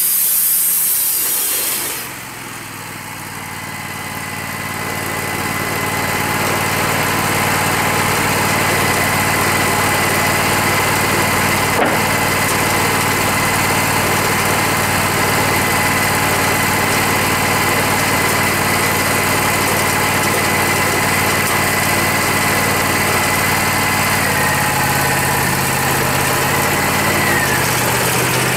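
Wood-Mizer LT40 bandsaw mill: the blade's sawing hiss stops about two seconds in as the cut ends. The mill's engine then runs steadily with a thin high whine, and its note shifts near the end.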